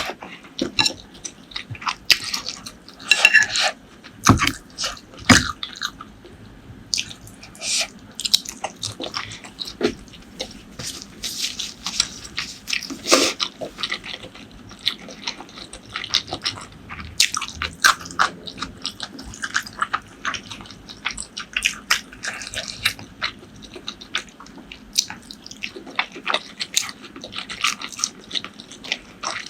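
Close-miked eating: chewing, with many short mouth smacks and clicks at an irregular pace.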